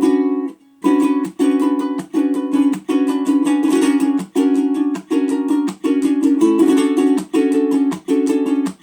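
Custom 17-inch curly maple tenor ukulele with a spruce top, strummed flamenco-style: rapid, rhythmic chord strokes in repeated bursts about every 0.6 seconds, separated by brief stops and mostly on the same chord.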